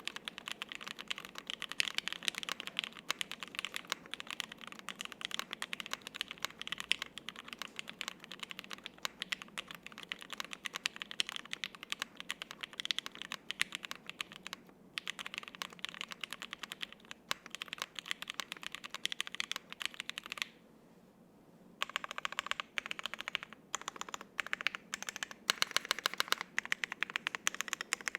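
Continuous fast typing on a custom gasket-mount 60% mechanical keyboard with lubed and filmed Alpaca V1 linear switches on a half FR-4 plate and double-shot ABS keycaps. The keystrokes come in dense runs, with one pause of about a second roughly two-thirds of the way through.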